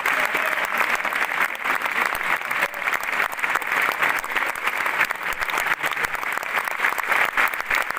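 A large theatre audience applauding steadily in a standing ovation, a dense, continuous clapping.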